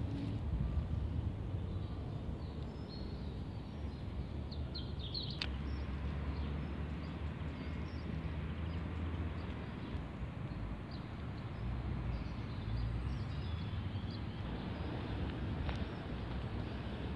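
Outdoor ambience: a steady low rumble with bird chirps now and then, and footsteps on a dirt path toward the end.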